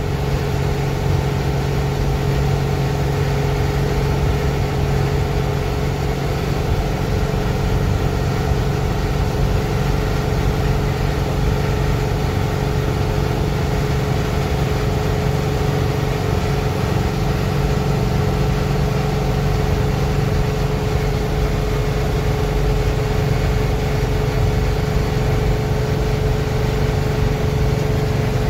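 7.3 IDI V8 diesel of a 1988 International S1654 wrecker pulling steadily at highway cruise, with a towed pickup on the back, heard from inside the cab. It gives a constant low drone with a steady higher whine over it, along with road noise.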